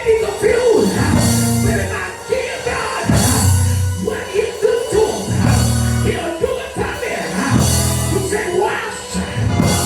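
Live church band music: a heavy bass line and drums with cymbal crashes about every two seconds, under keyboard and voices singing.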